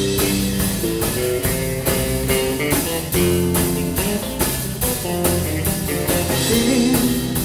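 Live rock band, two electric guitars, bass guitar and drum kit, playing an instrumental passage with a steady drum beat under a guitar melody line.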